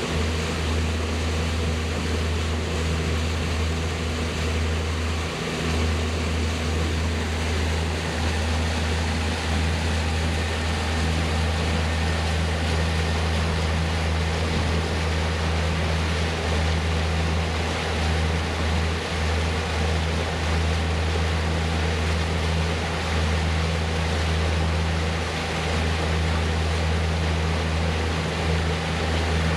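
Boat engine running steadily at cruising speed, a constant low drone, over the rush of wind and water.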